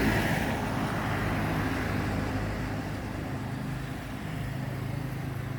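Steady outdoor background noise, a low hum under an even hiss, slowly fading a little with no distinct events.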